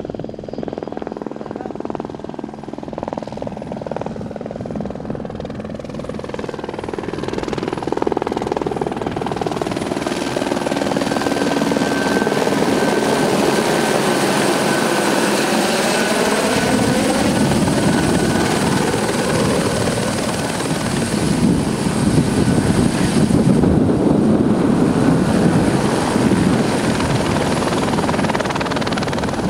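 Airbus AS350 Écureuil helicopter, its single turbine and three-bladed rotor running close by as it hovers low. The sound swells about a quarter of the way in and stays loud, with a thin turbine whine over the rotor noise. Before that, a smaller two-bladed helicopter is heard more faintly in the distance.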